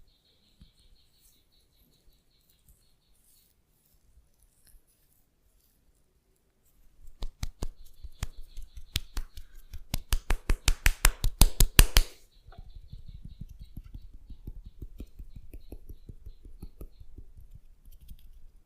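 A run of sharp, rapid percussive massage strikes that speed up and grow louder for about five seconds before stopping abruptly. They are followed by softer, quick, even rubbing or patting strokes, with only faint scattered ticks before the strikes begin.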